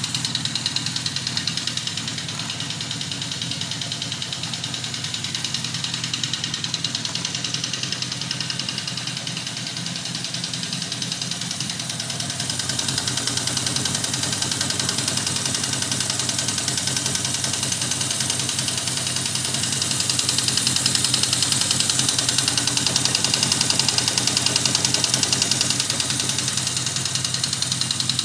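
1979 Yamaha XS1100 Special's inline-four engine running with a rhythmic knocking, clacking noise, which the owner takes for a valve or a cylinder not firing rather than a rod knock. The engine gets louder about twelve seconds in and again about twenty seconds in.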